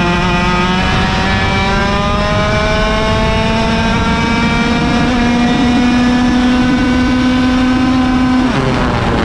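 Onboard sound of a 100cc two-stroke kart engine under full throttle, its pitch climbing steadily as the kart accelerates down a straight. Near the end the revs fall away abruptly as the throttle comes off.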